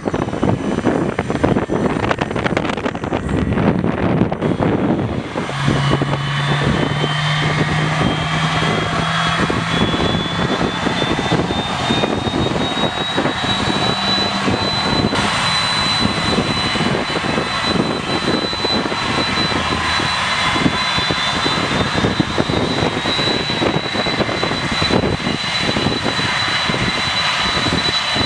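Boeing 747-400 jet engine spooling up during start. A whine begins about five seconds in, rises in pitch and levels off about halfway through, over a constant rushing noise.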